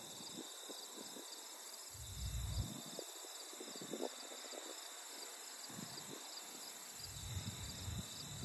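Insects chirping in a steady, high, pulsing chorus, with a couple of low gusty rumbles.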